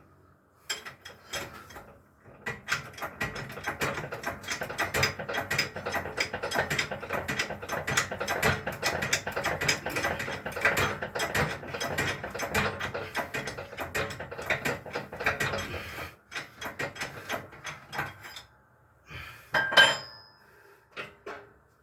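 Metal tool work getting a bearing off a Ford Pampa 4x4 gearbox shaft: a fast run of metallic clicks and clatter that thins out in the last few seconds, then one louder metal clank that rings, near the end.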